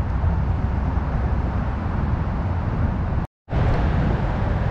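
Steady low rumble of road traffic, echoing under a concrete bridge. The sound cuts out completely for a split second a little over three seconds in.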